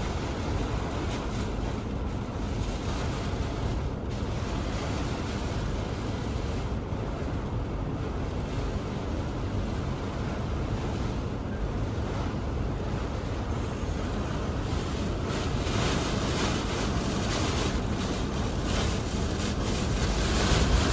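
Hurricane-force wind and rain, a steady dense rush with wind buffeting the microphone, growing louder in gusts over the last few seconds.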